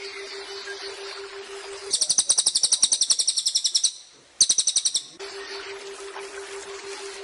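Cililin bird singing a loud, rapid trill of high, evenly repeated notes in two bursts, the first about two seconds long and the second shorter after a brief gap. Around them runs a steady hiss with a low hum, which stops while the bird sings.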